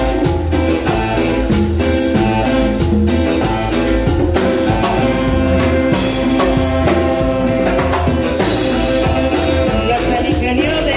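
Live cumbia band playing, with hand-played congas and a drum kit driving a steady rhythm under sustained melodic instruments.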